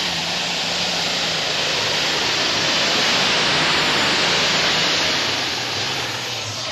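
John Deere pulling tractor's engine running flat out under load as it drags the weight-transfer sled down the track: a loud, steady rushing roar that builds a little midway and eases slightly near the end.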